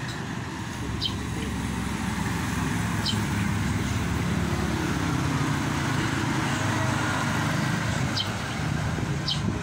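A motor vehicle's engine running close by, growing louder through the middle and easing off near the end, with a few short bird chirps over it.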